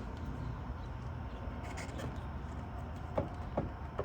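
Steady low hum with a few faint clicks late on, as a plastic taillight wiring-harness connector is handled and unplugged.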